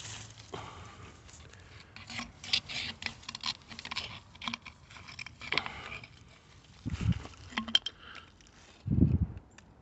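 Hand digging in dump soil full of glass: irregular scraping, crunching and light clinking, with two dull thumps, about seven seconds in and near the end.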